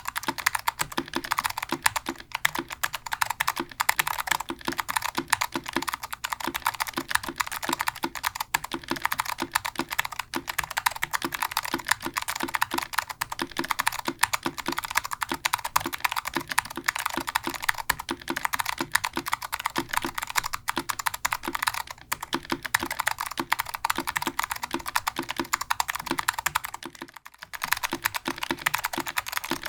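Fast, continuous typing on a mechanical keyboard with clicky Alps SKCM Blue switches on a POM plate, keyed with thick dye-sublimated PBT keycaps. About 27 seconds in, the typing stops briefly. It then resumes on thin double-shot ABS keycaps.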